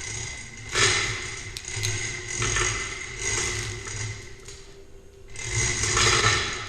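Chain hoist being worked by hand, its chain rattling and scraping through the hoist in several uneven spells as the load is lowered.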